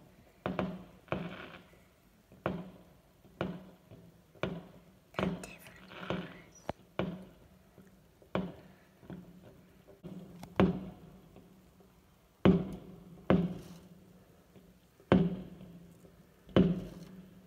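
Fireworks bursting in the sky: a steady string of sharp bangs, roughly one a second, each trailing off in a short echo, with the loudest bangs in the second half.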